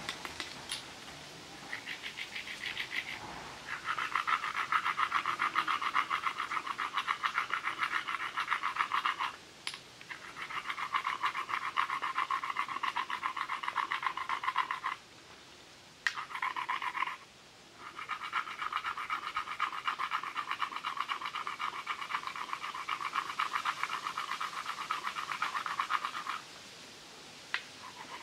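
A mussel shell being rubbed fast back and forth against a stone, grinding it down to an edge: rapid scraping strokes in long runs with short pauses between.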